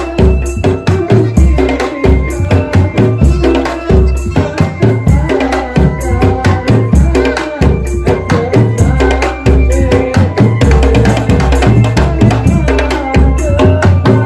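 Drum band playing at full volume: heavy bass drums and snare drums beating a fast, dense rhythm, with a wavering melody line carried over it.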